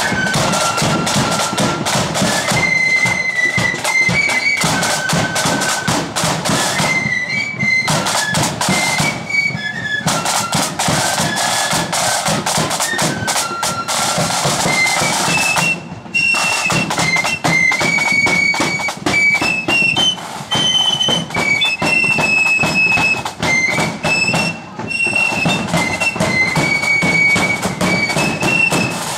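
Blood-and-thunder marching flute band playing a tune on flutes over fast snare drumming and a bass drum.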